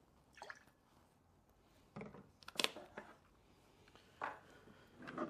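A few light, scattered clinks and knocks of bar tools and glassware being handled and set down, the loudest about two and a half seconds in.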